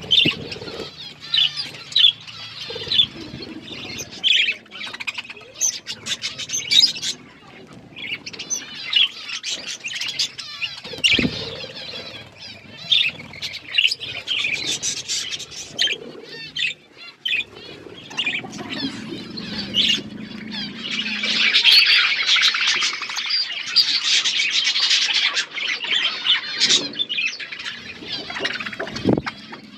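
Budgerigars chirping throughout, with a busy stretch of continuous chattering warble about two-thirds of the way in. A few dull thumps stand out, one in the middle and one near the end.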